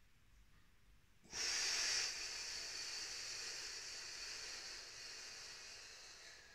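A long, hissing exhalation, breathed out hard about a second in, loudest at the start and then tapering off over about five seconds.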